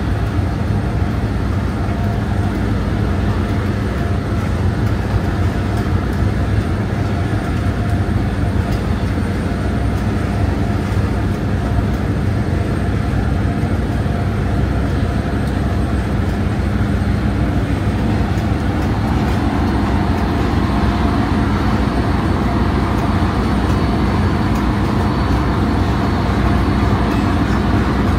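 Steady low drone of a ROPAX ferry's engines with the ship underway, a few steady tones riding on the rumble. About two-thirds of the way through, a hiss grows louder over the drone.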